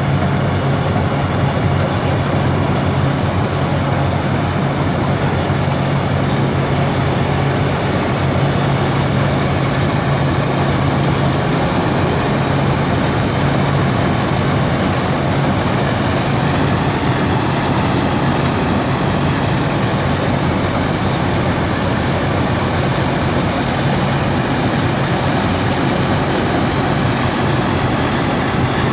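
Sonalika WorldTrac 60 tractor-mounted Vikas combine harvester working through the crop: a steady, loud diesel engine hum mixed with the constant noise of its harvesting machinery.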